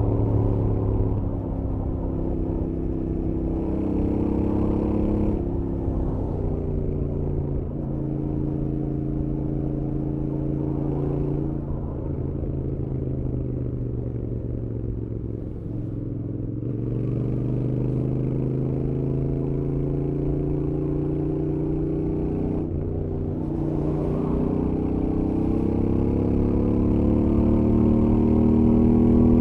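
Royal Enfield Interceptor 650 with its stock exhaust, its parallel-twin engine pulling at highway speed. The engine note rises and falls with the throttle, with drops at gear changes. It eases off through the middle, then climbs again through a long acceleration with another shift near the end.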